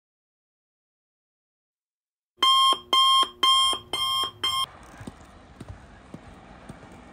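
Electronic alarm beeper sounding five short, shrill beeps in quick succession, starting after about two seconds of dead silence. A faint, steady background with small ticks follows.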